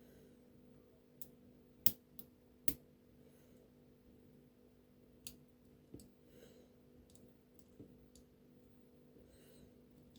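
Lock-picking tools clicking against the pins inside an OnGuard lock cylinder: scattered short metallic clicks, the loudest two about two seconds in.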